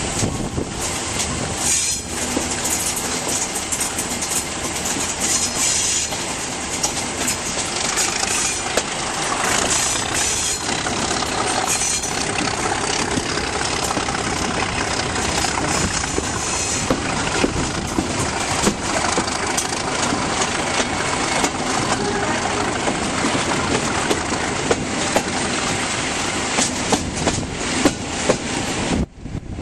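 Class 37 diesel locomotives, English Electric V12 engines, running under power with wind rushing over the microphone at an open cab window, and wheels clicking over rail joints.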